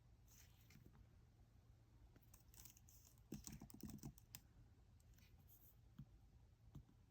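Faint key clicks of typing on an Apple Magic Keyboard, irregular, with a short busier run of taps about halfway through.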